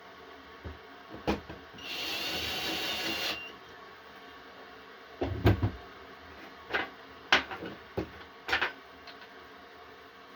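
A small power tool runs briefly, about a second and a half, with a steady high whine, followed by a series of sharp clicks and knocks from handling the parts.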